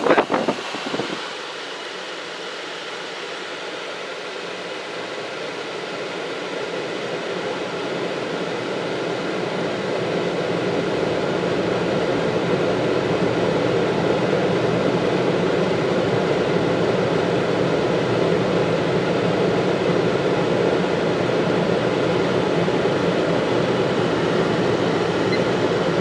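Frigidaire 12,000 BTU window air conditioner running with its compressor just started. The sound grows steadily louder over the first ten seconds or so as the compressor builds pressure and draws more power, then holds steady.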